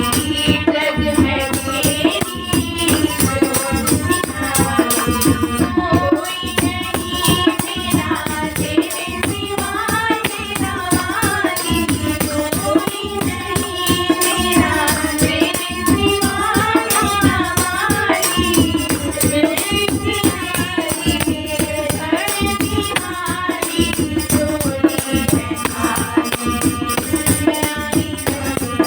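Devotional Hindu bhajan to the mother goddess: a sung melody over steady hand percussion and rattles.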